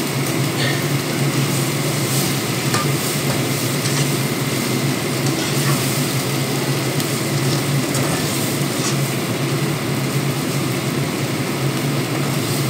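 Tofu and chilli for sambal goreng tahu sizzling as they fry in a pan, with a few faint clicks of a spatula stirring. A low steady hum runs underneath.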